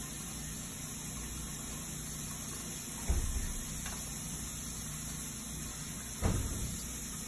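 Steady low hum of a bathroom exhaust fan, with two dull thumps about three seconds apart.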